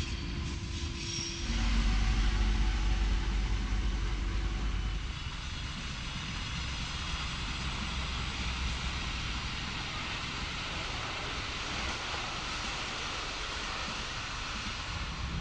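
Train running on rails: a steady rolling rumble that swells about a second and a half in and settles about five seconds in into an even rolling noise.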